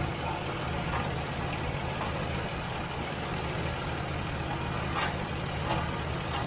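Crawler water well drilling rig's engine running steadily while the rig drills, with a dense low pulsing and a few light knocks.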